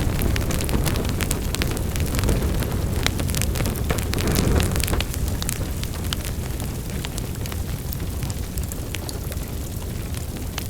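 Wood fire burning in a fireplace: a steady low rumble of flames with frequent sharp crackles and pops, a little louder in the first half.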